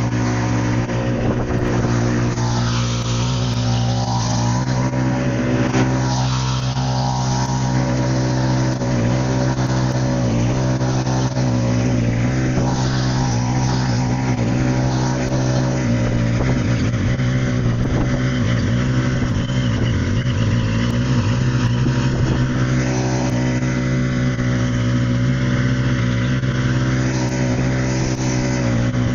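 Engine of a 1974 Allis-Chalmers 712H garden tractor running steadily under load while driving a 42-inch single-stage snow blower, with an even hum throughout.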